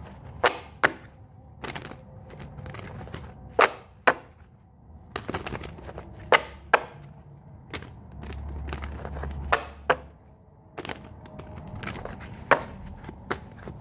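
A deck of tarot cards being shuffled and handled: a string of irregular sharp clicks and snaps, with a brief low rumble about eight seconds in.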